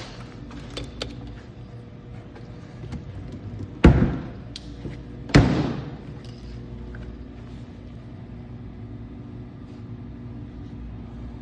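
Two loud door slams, about a second and a half apart, over a steady low hum.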